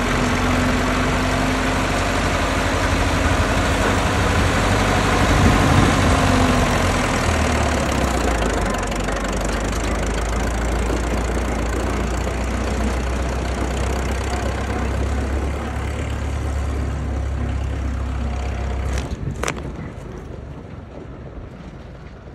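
Hanomag tractor's diesel engine running at close range, then fading over the last few seconds as the tractor moves off, with a couple of sharp clicks as it goes.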